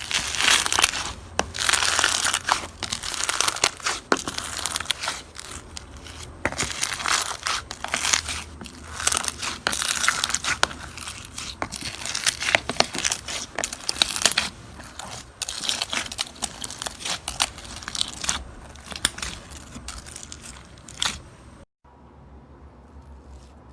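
Slime being squeezed and pressed, giving dense crackling and popping with many sharp clicks. Near the end it cuts off, and a much quieter, softer squishing follows.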